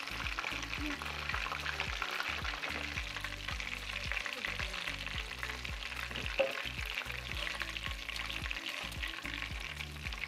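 Breaded perch fillets deep-frying in hot avocado oil in a cast iron skillet: a steady, dense crackling sizzle. One sharp tap stands out about six seconds in.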